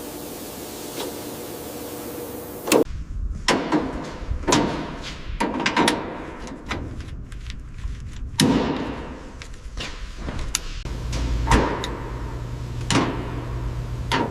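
A steady hiss for the first few seconds, then a run of sharp knocks and clanks at irregular intervals, some with a short ring, over an intermittent low hum.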